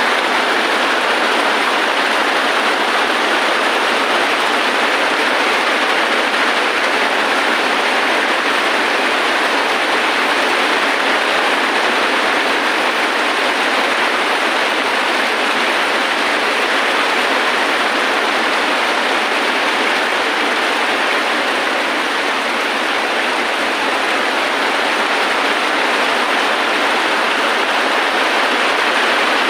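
Heavy rain falling steadily: a loud, even hiss with no thunder or other distinct sounds standing out.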